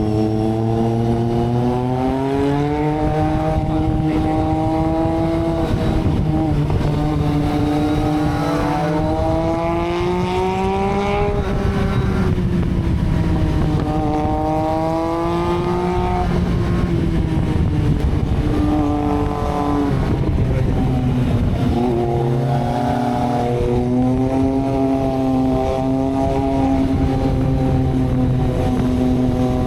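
Motorcycle engines of a Kawasaki Z750 and a Triumph Street Triple running on the move, the pitch rising and falling again and again with throttle and gear changes, over a steadier low drone.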